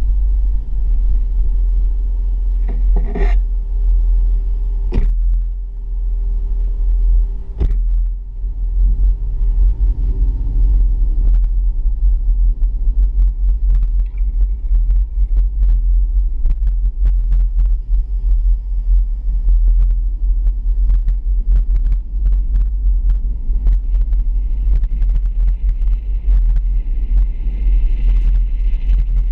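Heavy low rumble of a vehicle driving, picked up by a camera mounted on its hood. A few sharp knocks come in the first eight seconds, and a higher hiss joins near the end as it pulls onto the road.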